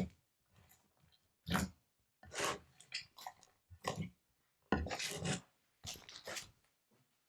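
Hands squishing and stretching slime: irregular short, sticky squelching bursts, about nine in all, with silent gaps between them.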